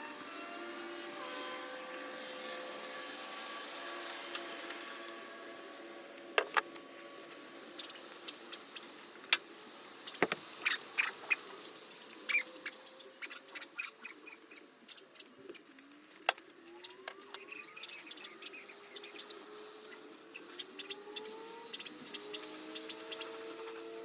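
Scattered sharp clicks and knocks, clustered in the middle stretch, over a steady background of traffic with tones that slowly rise and fall in pitch.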